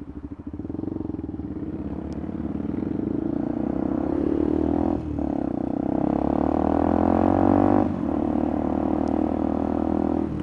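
Motorcycle engine pulling away from low revs and accelerating, its pitch climbing, with two brief dips for gear changes about five and eight seconds in, then running steadily.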